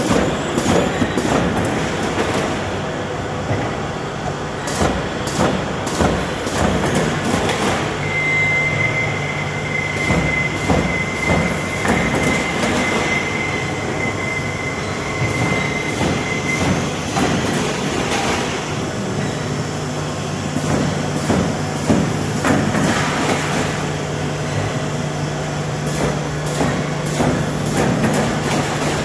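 Automatic corrugated-cardboard partition assembly machine running: a steady mechanical hum with rapid, irregular clacking and clicking from its feeding and inserting mechanisms. A thin, high, steady whistle sounds for several seconds partway through.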